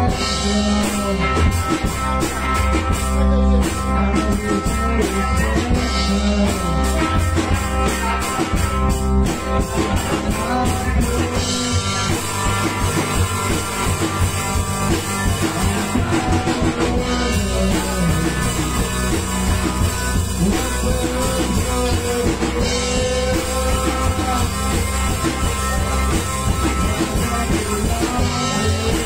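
A small rock band playing live together: electric guitar, bass guitar and a GTX drum kit, with a singer at the microphone.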